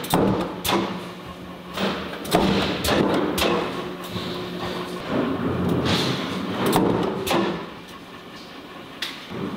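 Metal-forming press shaping stainless steel sink strainers: a steady machine hum with repeated sharp metal clanks and thuds from the die and the handled parts, about ten knocks in all, thinning out near the end.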